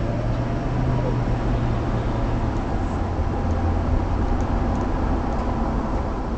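Police car driving, heard from inside the cabin: a steady low engine hum under road and tyre noise.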